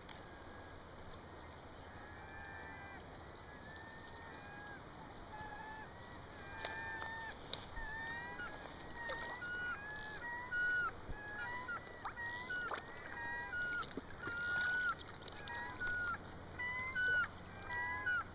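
A flock of geese honking: many short, overlapping calls, faint at first and growing louder and more frequent from about six seconds in.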